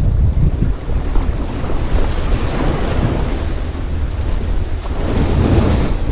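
Wind buffeting the microphone over small waves lapping at the shore, with a wave washing in louder near the end.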